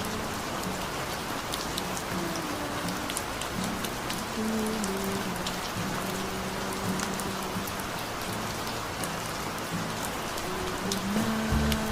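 Rain sound effect of steady rainfall with fine pattering drops, over soft instrumental music of held mellow notes. A low, rhythmic bass line comes in near the end.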